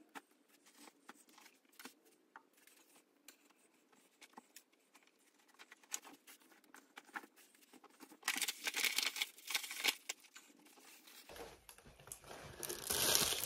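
Packing items and their packaging being handled, crinkling and rustling, with scattered light clicks and taps. Louder bursts of crinkling come about eight seconds in and again near the end.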